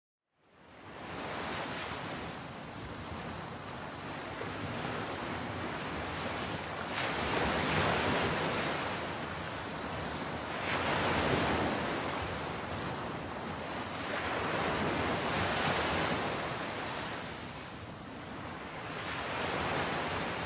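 Waves washing in, a steady rushing that swells and fades about every four seconds, after a moment of silence at the very start.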